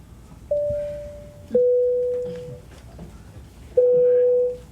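Airliner cabin PA chime: three electronic dings, a higher one followed by two lower ones, each ringing out and fading.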